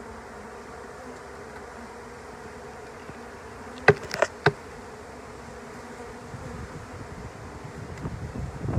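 A crowd of honeybees buzzing steadily around an open trap-out hive box. About four seconds in, three or four sharp wooden knocks as a frame is pried loose and lifted out of the box.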